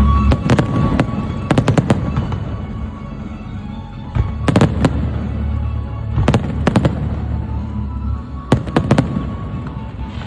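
Fireworks going off in five quick clusters of sharp cracks, about two seconds apart, over music with a steady low bass.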